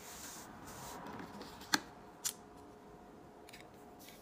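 Small plastic miniature parts handled between the fingers: a faint rubbing in the first second or so, then two sharp clicks about half a second apart.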